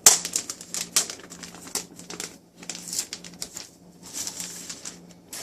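Protective plastic wrap being peeled and pulled off a new keyboard dock, crinkling and crackling in quick irregular rustles, loudest at the very start.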